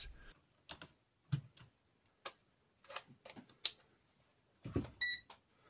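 Scattered sharp clicks of keys being pressed on the Poqet PC palmtop's small keyboard. About five seconds in come a soft thump as a digital multimeter is set down, and its short electronic beep as it is switched on.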